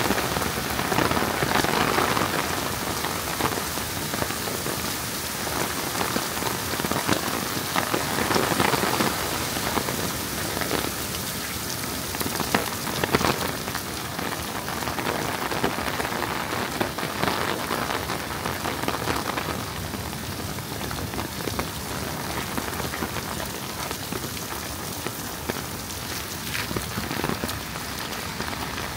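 Heavy rain falling and spattering on surfaces: a dense steady hiss full of close drop hits, swelling and easing every few seconds.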